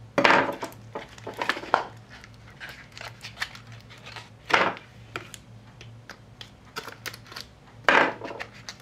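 Small cardboard box handled while its sealing tape is worked free: scraping, rubbing and crinkling, with three louder rasps near the start, about halfway and near the end.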